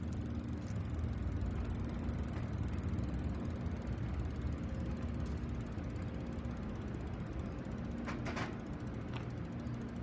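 Bicycle drivetrain turning in a repair stand, with the rear hub's freewheel ratchet clicking steadily.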